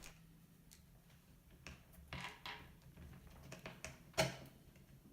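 Small, scattered clicks and short scrapes of hands and a tool working a front wheel off a 1/12 scale RC truck, the sharpest click about four seconds in.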